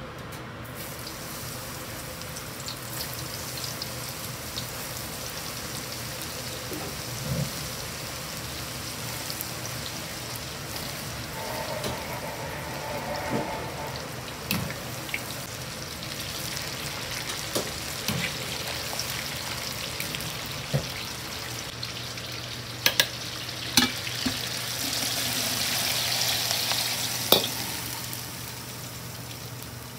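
Eggplant pieces deep-frying in hot oil in a carbon-steel wok: a steady sizzle as they are oil-blanched (油通し), the quick hot-oil pre-fry for mapo eggplant. A few sharp knocks come near the end.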